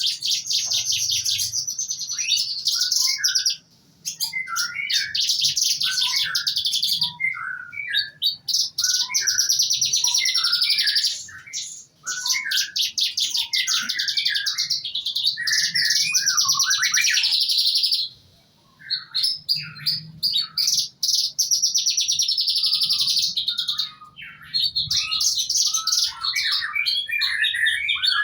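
Pastol songbird singing in long runs of very rapid, high rattling trills mixed with lower chirps, broken by short pauses about four times.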